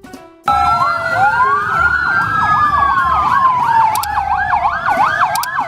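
Several emergency sirens sounding at once, starting suddenly about half a second in. A slow wail rises and falls, while a fast yelping siren swings up and down about three times a second.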